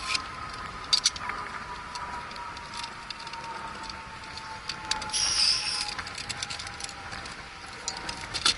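Scattered clicks and clatter of a backpacking stove and cook gear being set up, with a short hiss about five seconds in. A faint steady tone slides slowly lower in pitch behind it.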